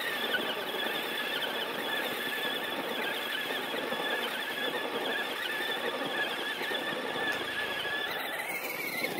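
Electric RC car's motor and gear drive whining at a steady high pitch as it runs at speed, falling away near the end as it slows.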